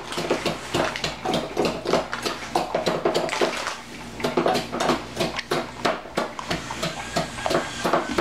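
Meat tenderizer pounding Oreo cookies in a small metal saucepan: rapid, uneven knocks and crunches, several a second, as the cookies are crushed into crumbs.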